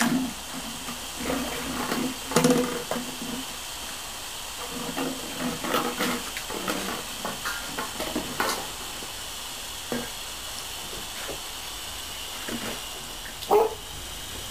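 Border collie puppies growling in play, with low rumbling growls in the first half and scattered small knocks and rustles. Under it runs a steady hiss from a garden hose set to a fine mist, and a short louder cry comes near the end.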